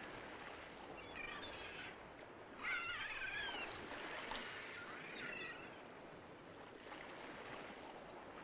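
Gulls calling in three short bouts over a steady faint hiss of wind and water.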